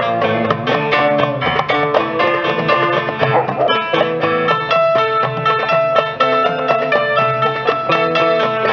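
Live Turkish-style belly dance music: a saz picks a quick, busy melody with the band, with a hand drum in the mix.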